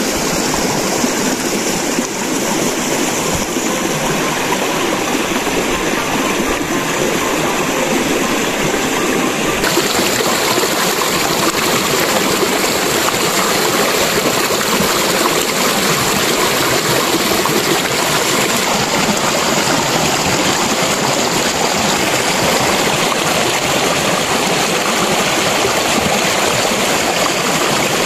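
Shallow stream rushing and splashing over rocks, a loud, steady water noise. About ten seconds in it turns hissier and a little louder.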